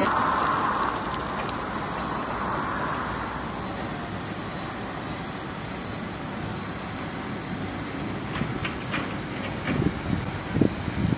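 DJI Mavic Pro quadcopter's propellers buzzing as it flies away, fading over the first few seconds to a steady faint hum and hiss. Irregular low thumps come in near the end.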